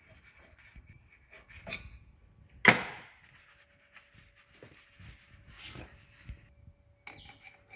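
Hand tools working on the brake caliper bolts as they are undone: light rubbing and clicks, with one sharp metallic clank about three seconds in.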